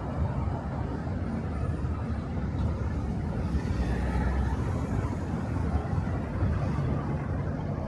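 Steady low rumble of city street ambience, consistent with traffic, without distinct individual events.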